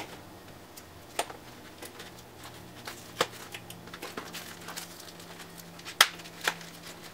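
A small paper-and-plastic mail packet being handled and torn open by hand: bouts of rustling and crinkling broken by sharp clicks and crackles, the loudest about six seconds in.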